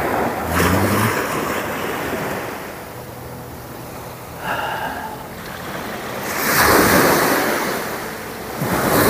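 Sea surf washing onto a sandy beach: a steady rushing wash that swells into louder surges about two-thirds of the way through and again at the end.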